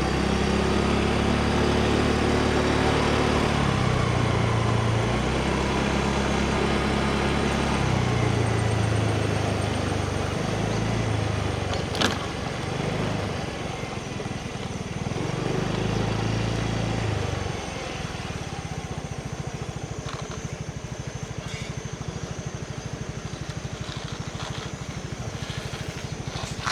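Rented motorbike's engine running while being ridden, its pitch rising and falling with speed, with a single sharp click about halfway through. After about 17 seconds it settles to a steady idle.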